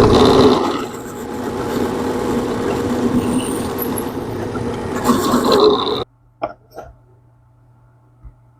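Power drill boring a hole through a wooden block, running loud and steady for about six seconds before stopping suddenly. A few faint clicks follow.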